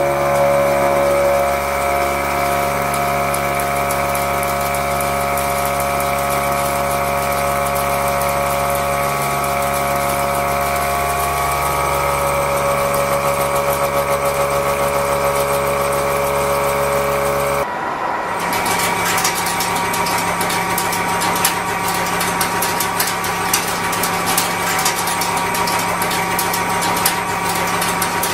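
A CNC milling machine face-milling steel, the spindle and cutter running with a steady whine made of several tones. About two-thirds of the way through, the sound changes abruptly to a harsher cut full of rapid clicks.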